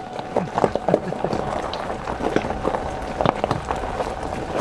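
Car rolling slowly on a gravel road: tyres crunching and popping over loose stones in irregular clicks and knocks, over a low steady engine and road rumble, with a faint steady tone above it.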